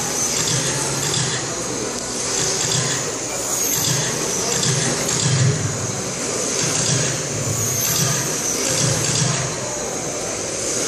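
Electric on-road RC race cars whining as they lap the track, the pitch rising and falling as they pass, with voices in the hall underneath.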